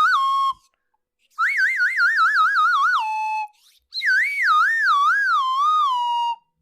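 Comedy sound effects: warbling whistle-like tones that wobble up and down in pitch and then drop to a lower held note. The tail of one ends about half a second in, a second runs through the middle, and a third, with a slower, wider wobble, fills most of the last part.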